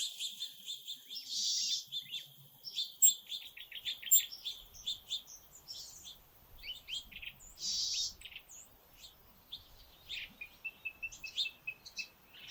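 Songbirds chirping and singing, with many short, high notes and a quick run of repeated notes about three to four seconds in.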